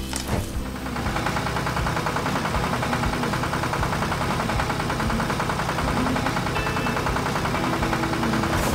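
Tractor engine running steadily with a fast, even beat, coming in about a second in.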